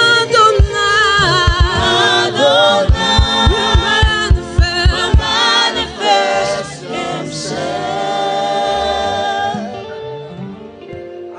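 Live gospel worship music: singers with a band, a steady kick-drum beat under the first five seconds, then sustained chords that grow quieter near the end.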